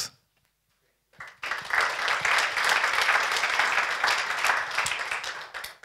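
Audience applauding after a talk, starting about a second in and dying away near the end.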